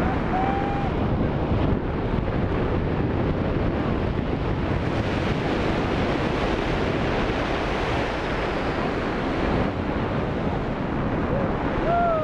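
Steady wind rushing over the camera's microphone as a tandem parachute pair glides under an open canopy.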